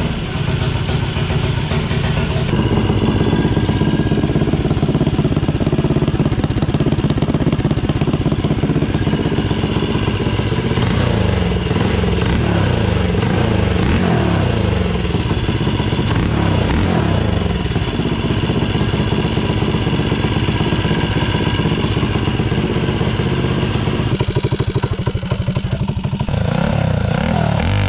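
Tillotson 225 single-cylinder engine on a Mega Moto 80/105 minibike running, freshly fitted with a 28 mm D-slide carburetor on an open velocity stack. Its revs rise and fall a few times around the middle, and the sound changes abruptly twice.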